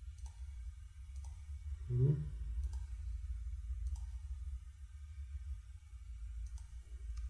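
Computer mouse clicking: about six separate single clicks spread out over a steady low electrical hum. A short, low vocal sound about two seconds in is the loudest thing heard.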